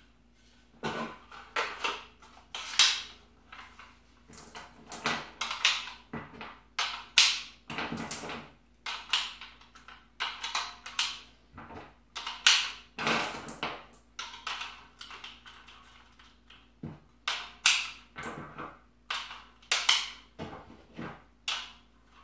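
5.56 brass cartridges clicking and clacking as they are loaded through a Camo Brothers magazine speed loader into a 30-round rifle magazine: irregular sharp metallic clicks, many in quick clusters with short pauses between.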